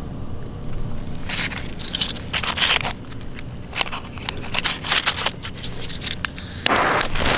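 Handling noise: scrapes, crackles and clicks as a gloved hand sets a firecracker and a jet lighter down on dry, stony ground and grass. A louder, steady rushing noise starts suddenly near the end.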